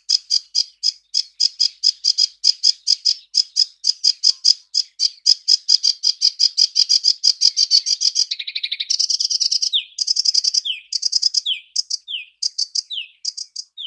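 Sedge warbler song: a long run of rapid repeated chattering notes, about five a second and quickening, then a harsher buzzy stretch about eight seconds in, followed by scratchy phrases alternating with short downward-slurred whistles.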